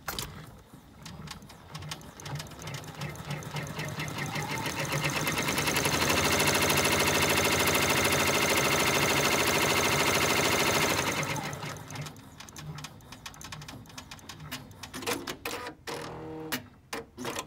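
Multi-needle embroidery machine running the tack-down stitch that fixes an appliqué fabric piece to the placement line, a fast, even run of needle strokes. It grows louder, holds steady for several seconds, then eases off about twelve seconds in, with a few clicks near the end.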